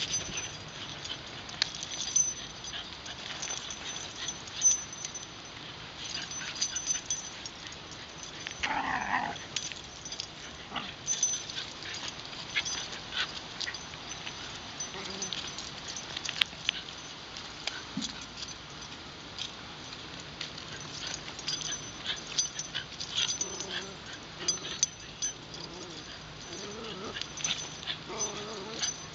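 Two wire fox terriers play-tussling on leashes: dog whimpers and yips over many quick clicks and scuffles. A louder, high-pitched cry comes about nine seconds in, and more whining near the end.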